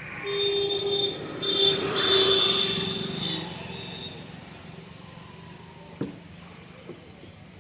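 Vehicle horn honking several times in the first few seconds, over the sound of passing road traffic; a single sharp click about six seconds in.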